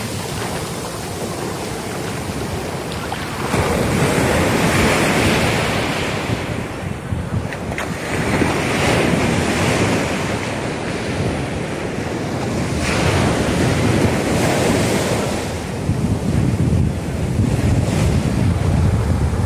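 Sea surf breaking and washing up the sand, swelling and easing in several surges, with wind buffeting the microphone.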